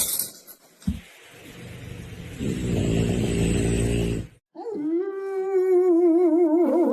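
A dog vocalising: a low, rough drawn-out grumble that cuts off suddenly, then, a moment later, a long wavering howl that keeps going.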